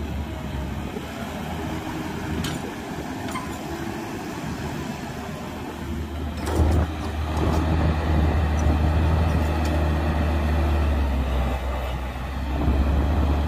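Heavy diesel engine of earthmoving machinery running. About six and a half seconds in it grows louder, as under load, with a knock at that moment. It eases off briefly near the end, then picks up again.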